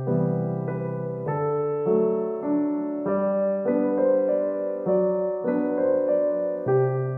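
Background piano music: a slow melody of single notes changing about every half second over held low notes.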